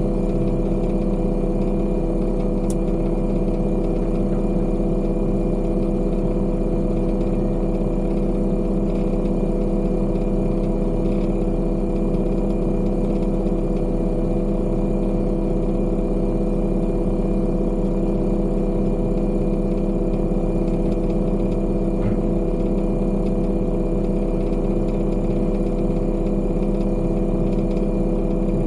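Heavy diesel engine of construction equipment running steadily at constant speed, with no change in pitch or load.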